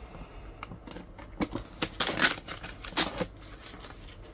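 An adhesive shipping label being peeled and torn off the top of a cardboard box: a series of short ripping tears, the loudest about two seconds in.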